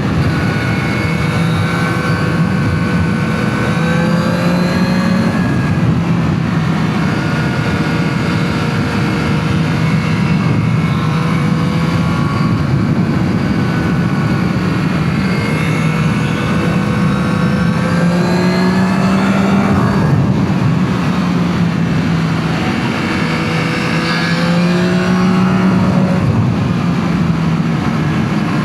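Yamaha MT-09 SP's three-cylinder engine with its stock exhaust, running under way. The revs rise and fall several times as the bike is ridden.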